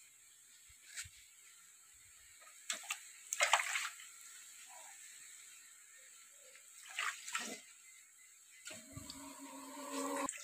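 Sliced onions frying in oil in a large aluminium pot: a faint steady sizzle, with a few short, louder bursts of crackling, the strongest about a third of the way in and another past the middle.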